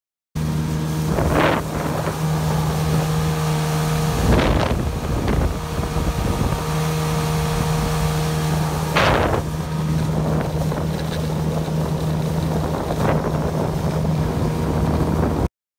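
Small motorboat under way, its engine running with a steady hum. Wind buffets the microphone, and several brief rushing surges rise over it.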